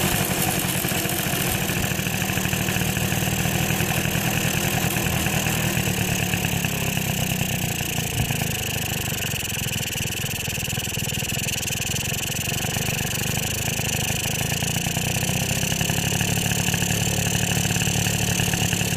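Suzuki FA50 moped's small two-stroke engine running steadily at low speed after being throttled down, still shaking and rattling. The owner puts the noise and heavy vibration down to the transmission or gearing, which he says is worse once the transmission kicks in and fine at idle.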